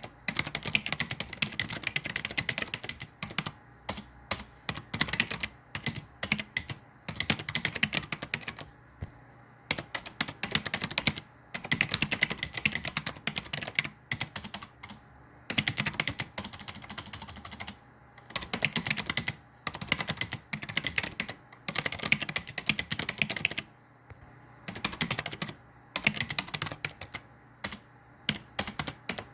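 Typing on a computer keyboard: rapid clicking keystrokes in runs of a second or two, broken by short pauses.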